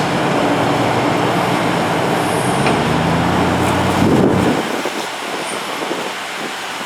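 A motor vehicle passing close on the road, its engine and tyre noise fading out about four and a half seconds in, leaving quieter traffic noise.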